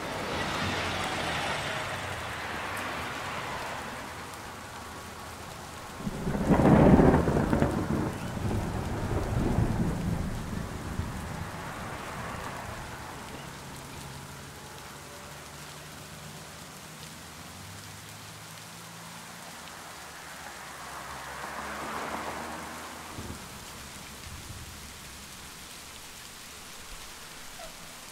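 Steady rain, with a loud deep rumble swelling about six seconds in and rolling on for several seconds, and a softer rumble a little after twenty seconds.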